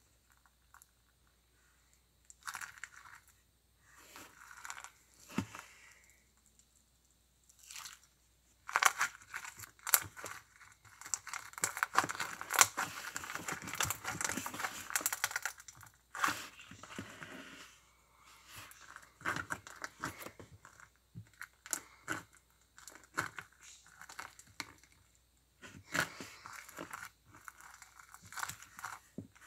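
Crunchy slime being squeezed and worked by hand, crackling and crunching in short spells with a longer, louder stretch of dense crackling in the middle.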